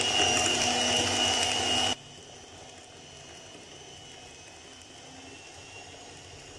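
Panasonic electric stand mixer running with a steady whine as its twin beaters whip eggs and sugar toward a creamy texture. It cuts off abruptly about two seconds in, leaving only a faint steady hum.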